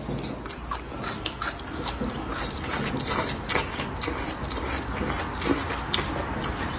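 Close-up eating sounds: chewing and slurping of food, with irregular crisp crunches and wet mouth clicks, heard over a steady low hum.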